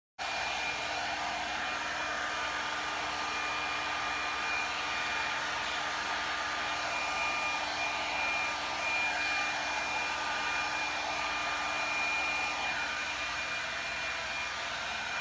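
Handheld hot-air blower running steadily: an even fan rush with a thin high whine over it.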